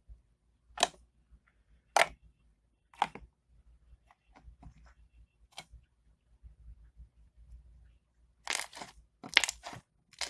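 Borax-activated clear-glue slime being squeezed and pressed, giving sharp clicking pops. Four spaced pops come first, then a quick run of them near the end.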